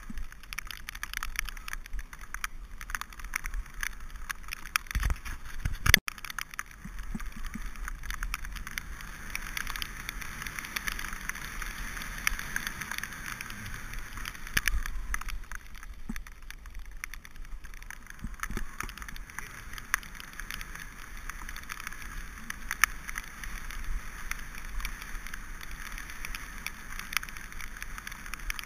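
Mountain bike rolling fast over a wet track: steady hiss of tyres on the wet surface with constant small rattles and clicks from the bike, and a sharp knock about six seconds in.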